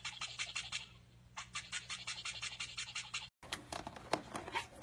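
Toothbrush bristles scrubbing in quick, even strokes, about seven a second, in two runs with a short pause between. After a sudden cut, a few scattered clicks follow.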